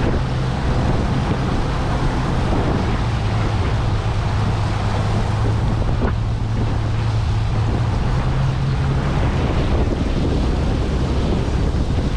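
Boat engine running steadily at low cruising speed, around 1,300 rpm, as a low hum, under wind buffeting the microphone and the rush of water.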